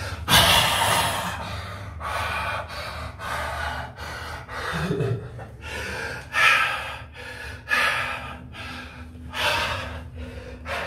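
A person breathing hard and gasping, a series of short, sharp breaths roughly one every second.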